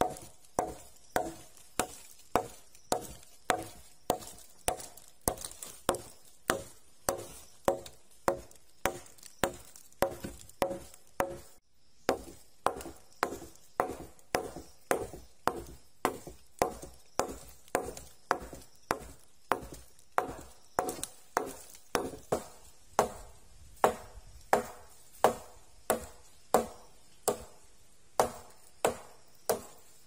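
Repeated chopping strikes of a blade on wood in a steady rhythm, a little under two a second, each blow ringing briefly.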